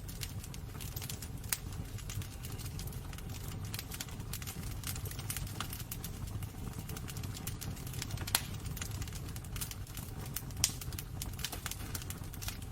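Wood burning in a fireplace, crackling with irregular sharp pops over a low steady rumble; one pop stands out about eight seconds in and a louder one a couple of seconds later.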